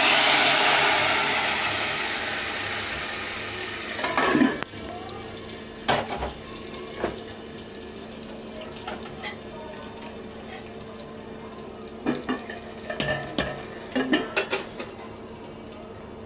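Hot tadka of oil, dried red chillies, cumin and asafoetida sizzling loudly as it is poured into a pot of kadhi, the sizzle fading away over about four seconds. Then a clatter of steel cookware about four seconds in, followed by a few scattered knocks and clinks.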